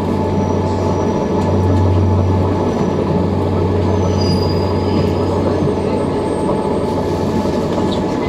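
Inside a Tobu Railway train car as it rolls slowly into a station and comes to a stop: a steady low hum over the rumble of the running gear, with faint high-pitched wheel squeals around the middle.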